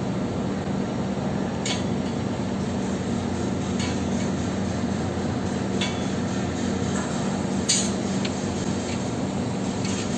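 Steady machine hum with a low drone, and four sharp metallic clinks a second or two apart, the loudest about three-quarters of the way through.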